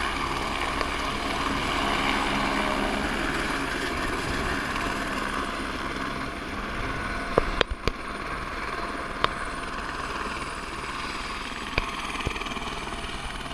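Turbine helicopter lifting off and flying away: steady rotor chop with a high turbine whine, easing off a little about halfway through. A few sharp clicks stand out in the second half.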